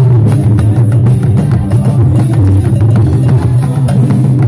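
Yoruba talking drum beaten rapidly with a curved stick in live gospel music, over a loud, steady bass line.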